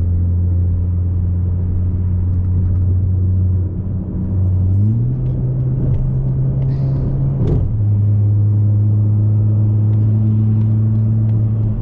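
Mazda3 engine heard through a muffler-delete exhaust while driving, a steady deep drone. Its pitch rises about five seconds in as the engine speeds up, then drops back about two and a half seconds later and holds steady.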